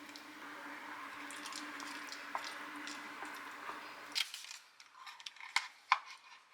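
Kitchen food-preparation sounds: a steady low hum with a soft, noisy texture and faint ticks. About four seconds in, the hum stops abruptly, and a few sharp clicks and taps of utensils or containers follow.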